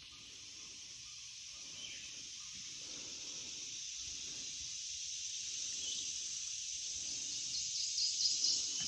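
Steady high-pitched drone of insects calling in a cypress swamp, growing gradually louder, with a few short high chirps near the end. Soft low thuds repeat about every half second beneath it, fitting footsteps on a wooden boardwalk.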